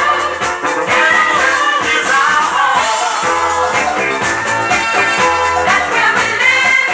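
Philadelphia soul record playing: a sung melody over a steady bass line and backing band.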